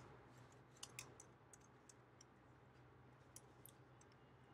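Near silence with a few faint clicks from working at a computer while editing code: two about a second in and two more a little past three seconds in.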